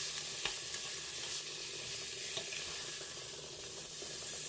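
Cubes of pork belly sizzling as they brown in a pot, with a steady frying hiss. A spatula stirring them gives a few light knocks and scrapes against the pot.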